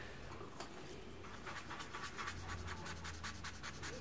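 A white drawing stick rubbed in quick back-and-forth strokes over a charcoal swatch on paper, a dry scratching at about four strokes a second that starts about a second in.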